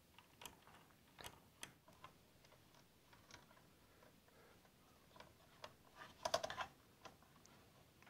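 Faint, scattered clicks and light taps of hands working parts on a 3D printer's power supply: wires pushed into its screw terminals, then its metal cover plate being handled and offered up to the frame, with a short cluster of clatter about six seconds in.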